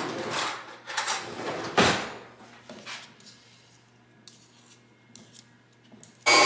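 Clinks and scrapes of a fork and a wire whisk working cold butter into sugar in a mixing bowl, with sharper clatters in the first two seconds and softer scraping after. Near the end a stand mixer's motor comes in suddenly and loudly.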